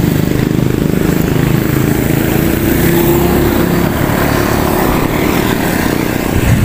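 Wind buffeting the action camera's microphone while riding a mountain bike: a loud, steady low rumble.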